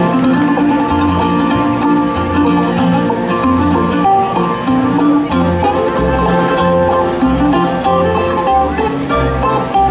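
Live bluegrass music, an instrumental stretch of plucked strings (banjo and guitar) over low bass notes on a steady beat.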